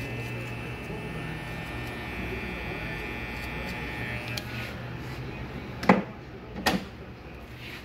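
Corded electric hair clipper humming steadily as it cuts, falling silent a little past halfway. Then two sharp knocks under a second apart, the first the louder.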